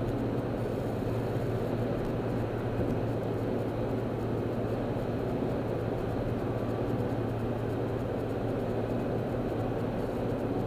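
Steady engine and road noise heard from inside a moving car's cabin, a low even hum with no sudden events.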